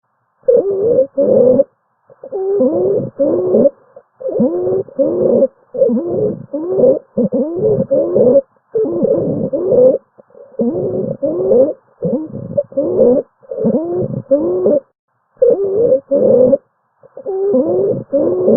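Recorded lung sounds: a quick series of short breaths, about one a second and often in pairs, each carrying musical tones that slide in pitch. This is a continuous adventitious breath sound of the wheezing kind.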